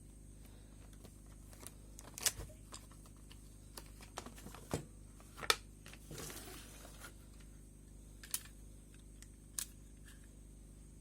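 Irregular clicks and knocks of a plastic toy blaster and its packaging being handled during unboxing, with a short rustle about six seconds in.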